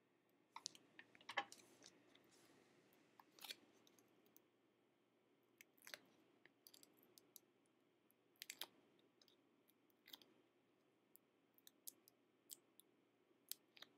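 Faint, scattered clicks and scratches of paper pieces and small craft tools being handled on a cutting mat, a dozen or so short sounds spread unevenly over a quiet room background.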